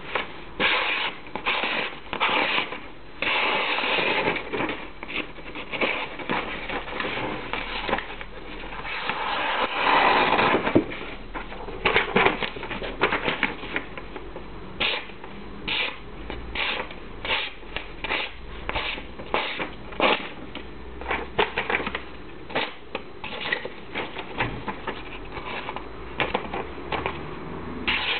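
Carbon-steel leuku blade slicing through sheets of hand-held paper, a sharpness test of its factory edge: several longer drawn cuts in the first half, then a quick series of short cuts, with the paper rustling.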